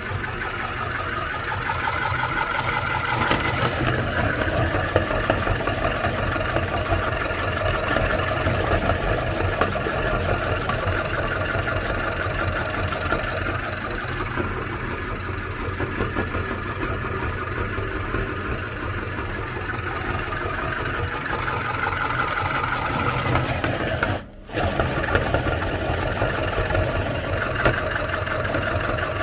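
Motorised meat grinder running steadily as it grinds Oreo cookies, a continuous motor hum with a rough grinding texture. It drops out briefly about 24 seconds in.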